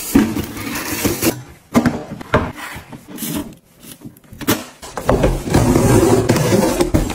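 Handling noises: several sharp clicks and knocks as a kitchen bin's lid is worked. Then, from about five seconds in, a continuous scraping rub as a taped cardboard box is handled and slid.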